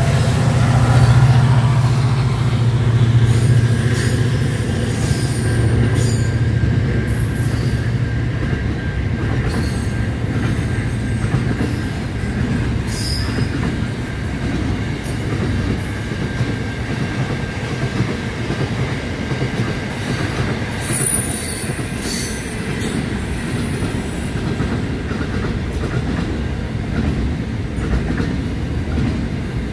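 Freight train passing. The diesel locomotive's engine drone is strongest in the first few seconds, then the wagons roll past with a steady low rumble, and the wheels give a few brief high squeals.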